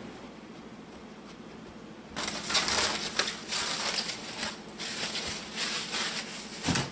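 Plastic bag crinkling and rustling loudly as it is handled, starting about two seconds in, with a short low thump near the end.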